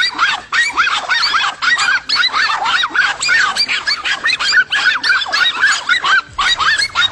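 Many animals calling at once: rapid, high, overlapping yelping calls, several a second, with a brief break about six seconds in.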